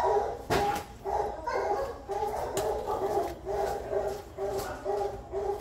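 A shelter dog barking over and over in a steady run, two or three barks a second.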